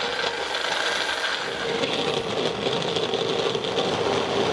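Electric blender running steadily, chopping up the cut pieces of a foam squishy toy.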